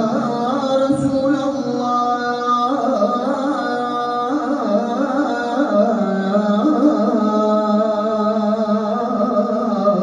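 A male voice chanting a Turkish sela in makam Hüseyni: one long, unbroken melismatic phrase of held notes with ornamented bends between pitches, sung into a microphone.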